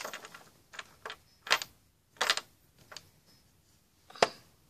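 A handful of light taps and clicks as plastic toys are moved and set down on a hard play surface, about six separate knocks with quiet between them, the sharpest a little after four seconds in.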